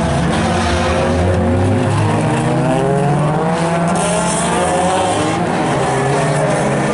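Several race cars' engines running hard together as a pack goes round the circuit, their overlapping pitches rising and falling as the drivers accelerate and lift.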